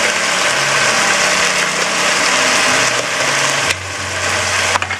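Chicken pieces and vegetables sizzling in a pot on a gas stove: a loud steady hiss with a low hum under it, dropping to a quieter sizzle about three and a half seconds in.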